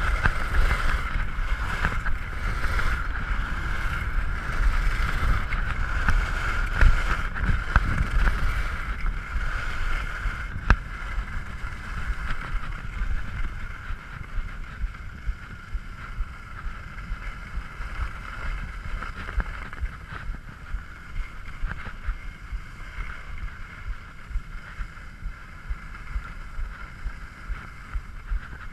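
Wind rushing over a body-mounted camera's microphone, with skis sliding on groomed snow during a downhill run. It is loud and rumbling for about the first ten seconds, then eases off, with small regular ticks through the second half.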